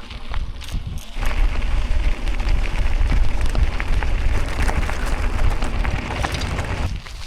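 Bicycle tyres rolling over a gravel road: a dense crackling crunch of stones over a low rumble of wind on the microphone. It starts abruptly about a second in and drops away shortly before the end.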